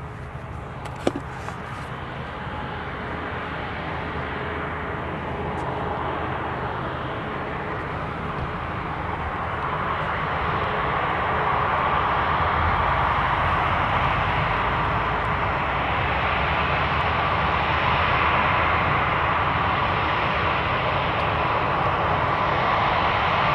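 Airbus A350 airliner's Rolls-Royce Trent XWB jet engines running, growing steadily louder as it comes toward the listener and then holding level. A short sharp knock about a second in.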